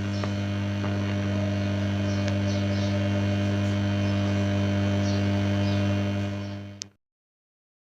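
Electrical mains hum from audio equipment: a loud, steady low hum with a stack of evenly spaced higher overtones and a faint hiss beneath. It ends about seven seconds in with a short fade and a click.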